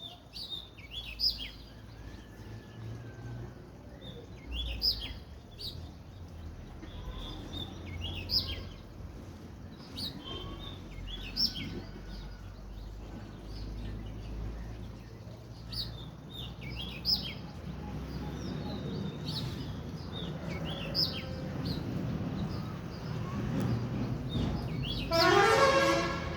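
Sparrows chirping, short high chirps every second or two over a low background rumble. Near the end a louder pitched sound lasting about a second rises above them.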